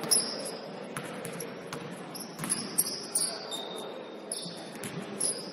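Basketball game in a gym: the ball bouncing on the court in irregular sharp knocks, over the general murmur of the hall, with short high-pitched squeaks.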